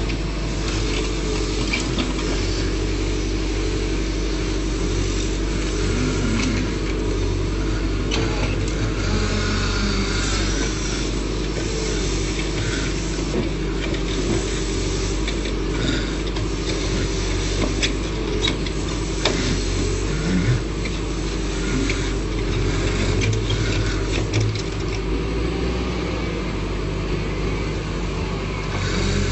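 Backhoe loader's diesel engine running steadily, with scattered knocks and scraping as the bucket works through stone.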